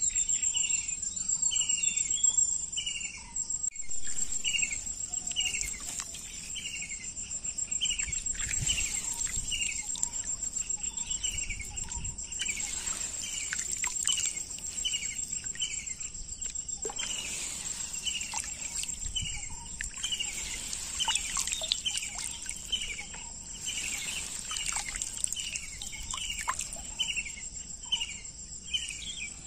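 Insects trilling steadily in a high, fast-pulsing buzz, with a bird repeating a short falling chirp about one and a half times a second.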